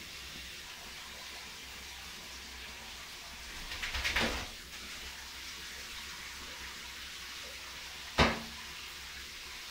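Water running steadily from a bathtub tap. About four seconds in there is a short burst of rapid splashing flaps as the wet dog shakes in the tub, and a single sharp knock comes about eight seconds in.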